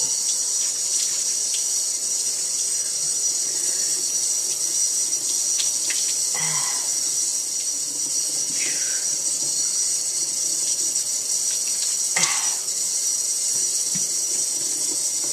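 Water running steadily from a kitchen sink's pull-down spray faucet, pouring over wet hair and splashing into the basin.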